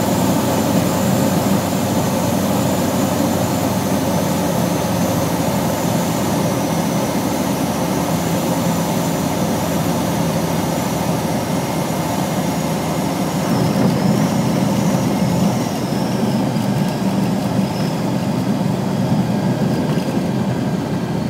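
Cockpit noise of an Evektor light aircraft landing and rolling out: its Rotax 912 engine running at low power under a steady rush of air and rolling noise.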